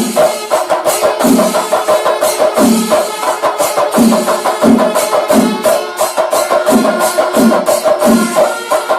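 Loud, percussion-led music: fast, sharp drum strokes struck with sticks over a deeper drum beat that comes roughly every half second or so, with a steady held tone underneath.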